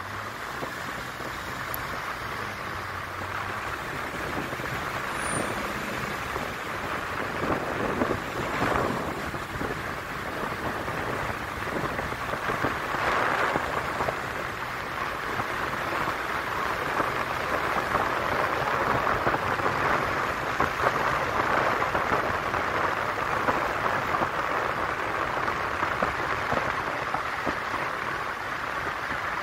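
Car driving through a road tunnel: a steady rush of tyre and wind noise, growing somewhat louder in the second half.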